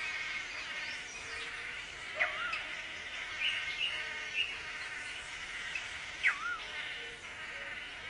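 Steady buzzing insect chorus with bird calls over it: two loud whistles that swoop sharply downward and hook back up, about two seconds in and again about six seconds in, and a few short chirps between them.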